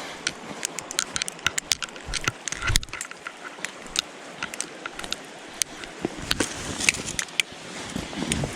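Rain pattering: irregular sharp drops and taps close to the microphone over a steady hiss, with a few low thumps.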